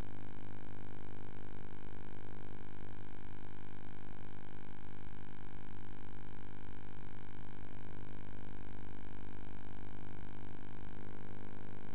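Helicopter in flight: a steady, unchanging drone made of several engine and rotor tones.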